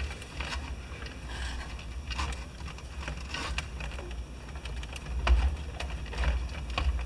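Scattered small clicks and taps of hands working a nylon cable tie and the wiring on a plastic toy chassis, over a low handling rumble.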